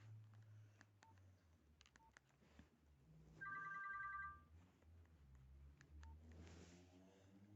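Nokia 1616 mobile phone being operated: scattered button clicks and short single keypad beeps. About a second of a ringtone plays from its small speaker midway.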